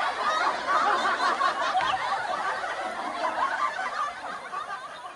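Laughter from many people at once, overlapping chuckles and snickers, fading away near the end.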